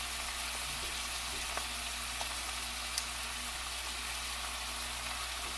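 Sliced cabbage frying in an enamelled cast-iron pan: a steady sizzle with a few small pops, the sharpest about three seconds in, over a steady low hum.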